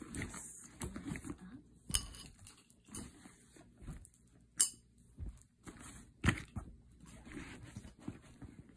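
Close handling noise: rustling and scattered light knocks and clinks, with a few sharper taps about two, four and a half and six seconds in.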